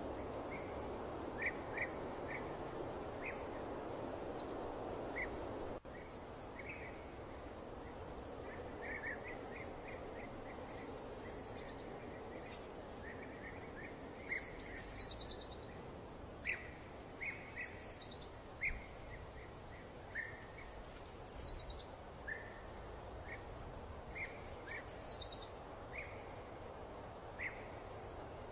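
Small birds singing over a soft steady hiss. Short chirps repeat throughout, and from about a third of the way in a high song phrase falls in pitch every three to four seconds. The hiss drops abruptly about six seconds in.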